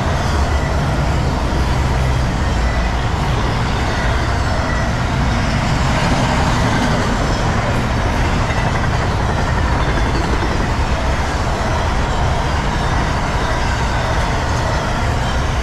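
Steady, loud vehicle rumble, heaviest in the low end, with no break or sudden event.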